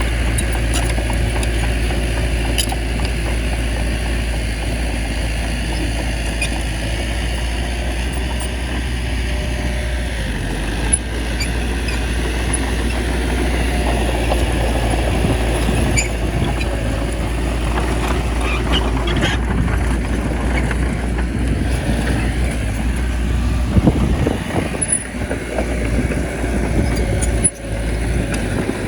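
Small bulldozer's diesel engine running steadily under load, with scattered knocks and a louder, rougher stretch near the end.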